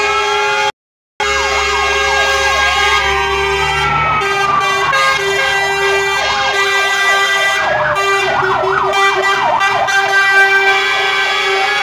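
Several fire engine sirens sounding at once, slow rising and falling wails overlapping fast yelps, as a column of fire engines drives past, with the trucks' engines running underneath. The sound cuts out briefly about a second in.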